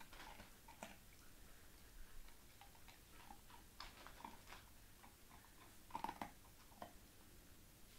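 American Staffordshire terrier puppy chewing food: faint, scattered small crunching clicks, with a louder cluster about six seconds in.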